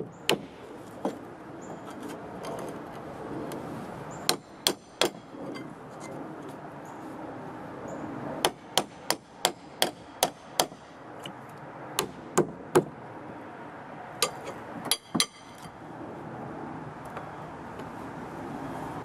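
Hammer striking a nail to drive it back out through a wooden deck stair board: sharp blows in quick bursts of three to six, a few with a short metallic ring.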